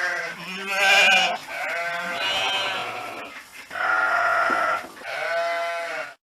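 Sheep bleating: about four long bleats in a row, some overlapping at different pitches.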